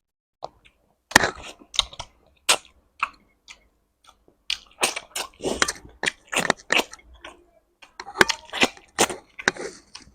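Close-miked chewing and mouth smacking of someone eating a meal of rice and curry, in irregular clusters of wet clicks with short silent pauses between mouthfuls.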